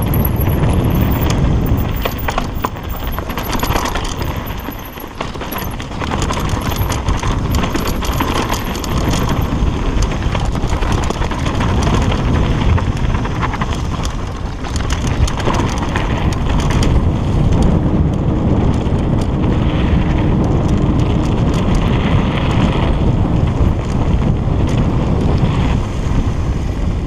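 Wind rushing over the microphone of a camera on a mountain bike riding downhill, with the tyres rolling over a gravel-and-dirt trail and many small clicks and rattles from the bike jolting over bumps.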